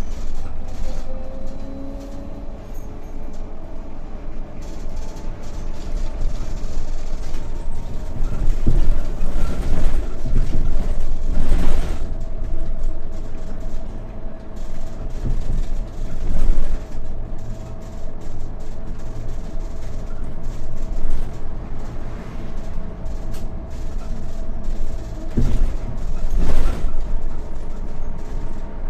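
Inside a moving trolleybus: steady road rumble with a thin, steady hum, broken by several loud knocks and rattles as it rides over bumps, the loudest around 12, 16 and 26 seconds in.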